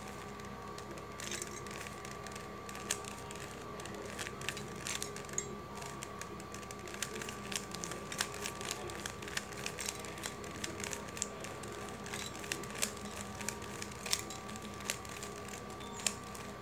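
A plastic 3x3 Rubik's cube being turned rapidly by hand: quick, irregular clicking and clacking of the layers, several clicks a second, fairly faint.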